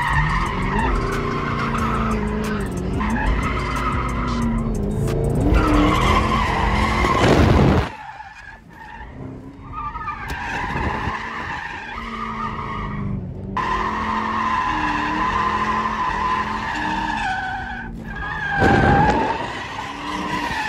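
Cars drifting: tires squealing in long, wavering squeals over engines revving up and down. About eight seconds in, the engine sound drops away abruptly, leaving mostly the tire squeal, and a brief louder engine surge comes near the end.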